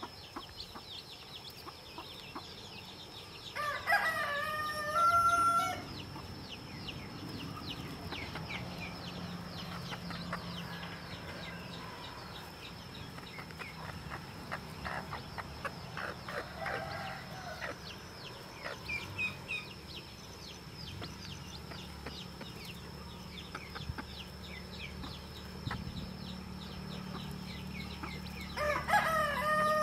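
Newly hatched chicks peeping with many short, high chirps, and a rooster crowing twice: once about four seconds in and again just before the end.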